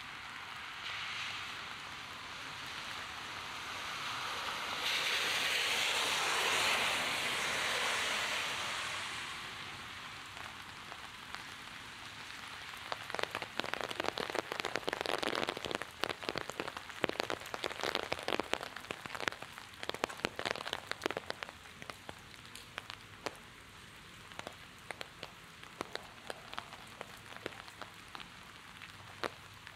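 Heavy rain hissing steadily on a city street, with a louder rushing swell about five to nine seconds in. From about halfway on, close, sharp drops tap near the microphone over the hiss.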